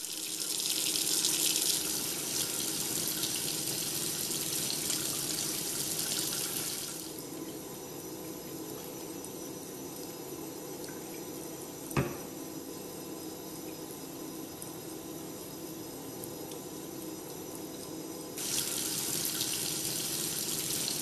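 Tap water running into a stainless steel sink and splashing over a metal probe held in the stream. It is louder for the first seven seconds and again near the end, with one sharp click about twelve seconds in.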